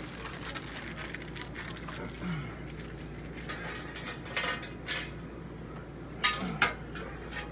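Small metal parts clinking and tapping: screws and lock hardware being handled, with a few sharp clicks, the loudest about six seconds in.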